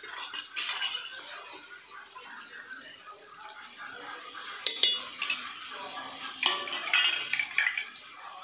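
A spatula stirring and scraping a pan of frying onion, tomato and spice masala, with metal clinks and scrapes; the sharpest clink comes just before five seconds. About three and a half seconds in there is a brief hiss as a little water goes into the hot masala.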